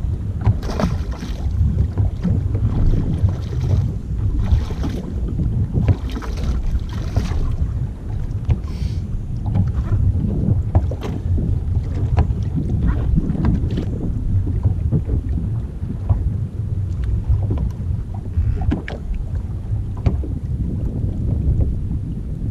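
Wind buffeting the microphone over choppy open sea: a heavy, steady low rumble, with splashy rushes of water during the first several seconds.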